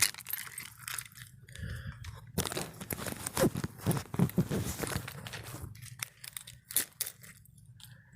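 Rustling and crinkling handling noise with scattered sharp clicks and knocks, busiest in the middle.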